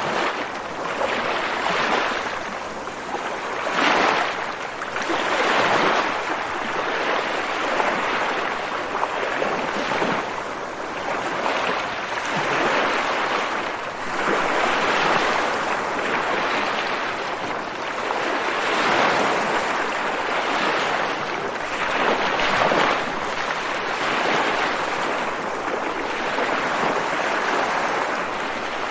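Ocean waves washing onto a shore, a continuous surf hiss that swells and recedes every few seconds.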